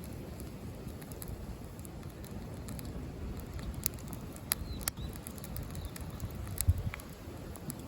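Wood campfire crackling with scattered sharp snaps, over a low rumble of wind on the microphone.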